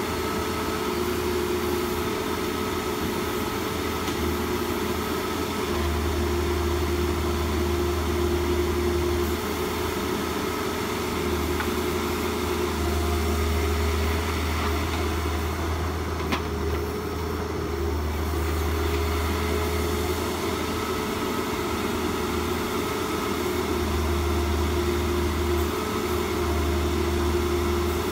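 A steady mechanical hum with a few constant tones, under a low rumble that comes and goes every few seconds.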